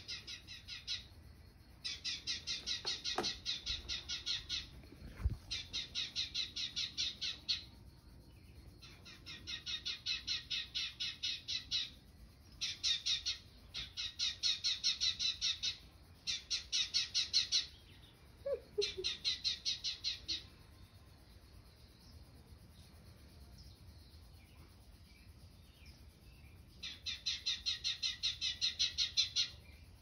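House sparrows chirping rapidly in runs of two to three seconds with short pauses between, played through a TV speaker.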